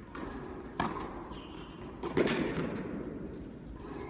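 Tennis ball struck by rackets and bouncing during a rally in a large indoor hall. There is a sharp hit about a second in and a louder one about two seconds in, which echoes off the hall.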